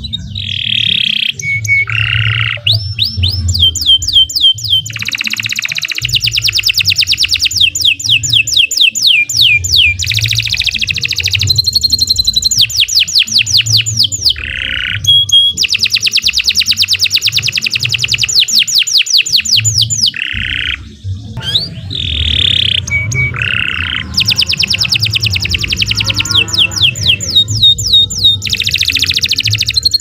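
Domestic canary singing a long song of rapid trills: fast runs of repeated notes, each run held a second or more before switching to a new phrase, with brief breaks between phrases. A low rumble runs underneath.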